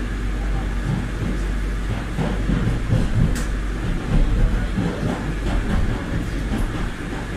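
Madrid Metro Line 5 train running through the tunnel, heard from inside the car: a steady low rumble from the motors and wheels, with irregular clacks of the wheels over the rails, busiest in the middle, and one sharp click.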